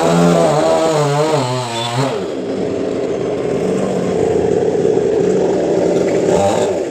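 Chainsaw running at high revs, its pitch wavering as it works in the cut for about two seconds, then dropping to a lower, rougher steady run, with a brief rev near the end.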